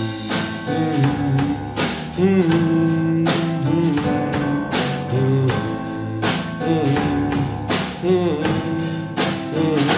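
Rock band music with a steady drum beat and guitar, an instrumental passage between sung verses.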